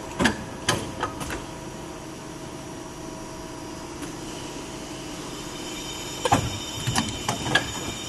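Toe lasting machine running with a steady hum, giving a few sharp mechanical clacks just after the start. About six seconds in, a quick run of clacks and a hiss comes as its pincers and wiper close on the toe of a boot.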